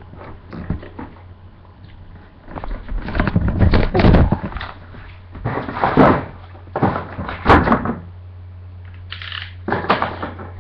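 Handling noise from a webcam being picked up and moved: several bursts of rustling and thumps, the loudest about four and six seconds in, over a steady low hum.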